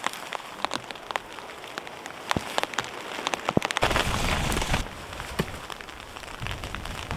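Raindrops ticking irregularly, then about four seconds in a gust of wind rumbles on the microphone and billows a nylon tarp, with a second gust near the end.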